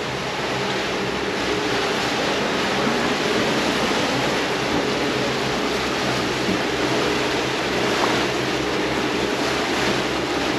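Steady rush of wind and waves around a sailing catamaran under way in choppy open water, with wind buffeting the microphone.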